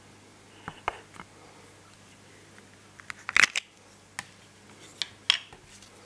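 Short sharp clicks and knocks of a small black plastic enclosure being handled: a loudest cluster of clicks about three and a half seconds in as the lid comes off, and a couple more as the open box is set on the pocket scale's metal pan.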